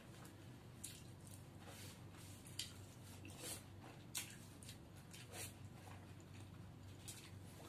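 Wet mouth sounds of someone eating cooked drumstick (moringa pod) pieces by hand, sucking and chewing the pulp off the fibres: a handful of short, soft smacks and slurps spread across several seconds, over a faint steady low hum.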